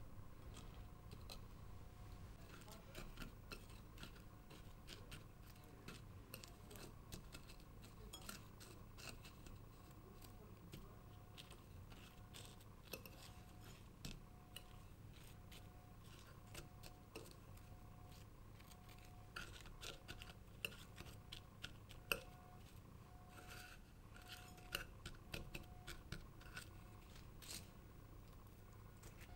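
Faint, scattered clicks and light scraping of metal tongs against a ceramic bowl as stone-pear slices are turned and pressed into raw sugar to coat them for drying.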